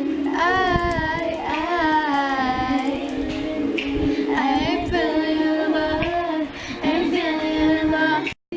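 Music with a high voice singing a melody, cutting off suddenly near the end.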